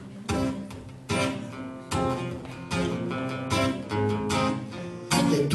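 Acoustic guitar strumming chords, a little more than one strum a second, each chord ringing out and fading before the next.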